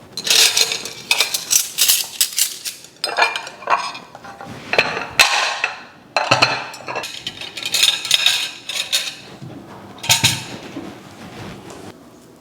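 Plates, glasses and cutlery clinking and knocking as a dining table is set, a quick run of clinks in clusters with a short pause partway through.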